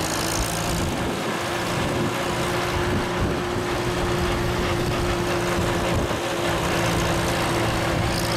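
Farm tractor engine running at a steady speed as it tows a wooden passenger wagon. It makes a steady hum with one held tone over a broad rush of road and wind noise.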